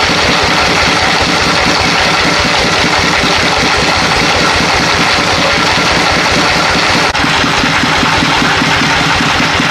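An engine running steadily with an even, rapid firing pulse, broken by a very short dropout about seven seconds in.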